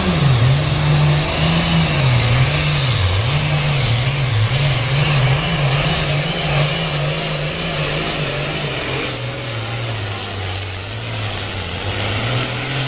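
Super farm pulling tractor's diesel engine running at full throttle while dragging a weight-transfer sled. The engine note wavers up and down repeatedly over the first several seconds, then runs lower and steadier in the second half of the pull.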